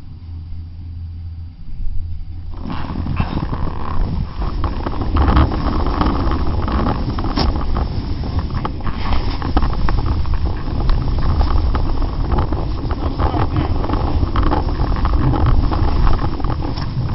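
Snowboard sliding and scraping over rough, chopped-up snow, with wind rushing over a leg-mounted camera's microphone; it starts suddenly about two and a half seconds in, after a low steady hum, and keeps up a dense crackling hiss.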